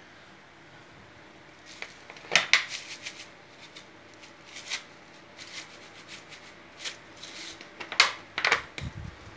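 Scattered light rustling and clicking of hands handling things around a baking tray, in irregular clusters, loudest about two seconds in and again near the end.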